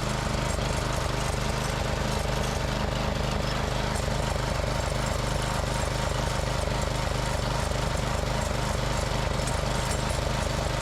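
The small engine of a walk-behind trimmer mower running steadily with a fast, even pulse, just after being started.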